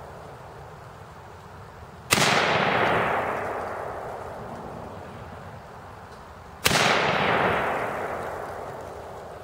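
Adams Arms AR-15 rifle fired twice, about four and a half seconds apart. Each sharp report is followed by a long echo that dies away over a couple of seconds.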